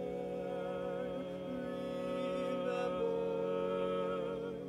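Male barbershop quartet singing a cappella in four-part harmony, holding one long sustained chord while the inner voices move and the top voice steps up about three seconds in; the chord is released just before the end.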